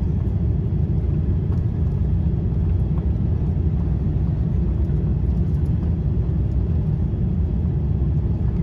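Steady low rumble of a Boeing 787-10's Rolls-Royce Trent 1000 engines and the airflow, heard inside the cabin just behind the wing during low-altitude flight. It stays even throughout, with no change in pitch or level.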